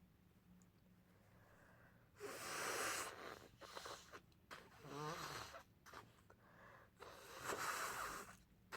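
Congested, snotty nose blowing into a tissue during a head cold: a long blow about two seconds in, a few shorter blows, and another long blow near the end.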